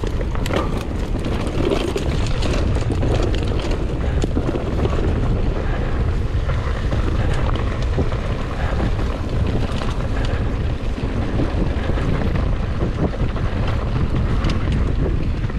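Steady wind buffeting on the microphone of a moving enduro motorcycle, with the bike's engine running underneath it.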